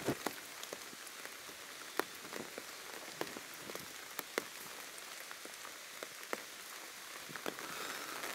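Steady rain falling, with irregular sharp taps of drops landing close by; the loudest tap comes about two seconds in.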